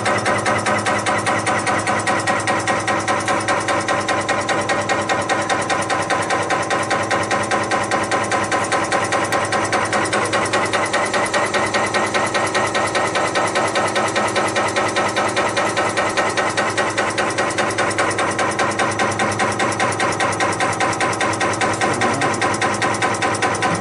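Cummins PT injector test bench running with an injector mounted, its spindle turning at 300 rpm: a fast, even mechanical knocking over a steady machine hum, as the bench cycles the injector.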